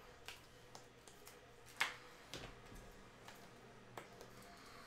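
Trading cards and plastic card holders being handled: a few light, scattered clicks and taps, the sharpest about two seconds in and near the end.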